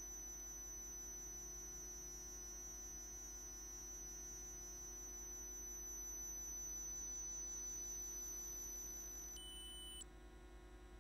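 Faint, steady high-pitched electronic whine over a low hum. The tone shifts briefly just before it cuts off at about ten seconds, leaving only the hum.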